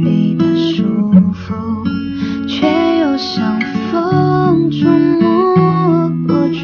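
Background music with a strummed acoustic guitar and a melody line over it.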